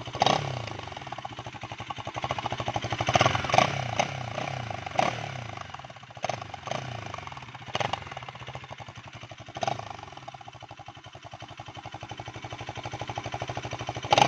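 Bajaj Pulsar NS200's single-cylinder engine idling and being blipped repeatedly, about ten short revs, each dropping back to idle.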